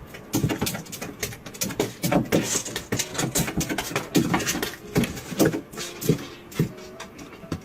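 Short animal noises among many quick clicks and knocks.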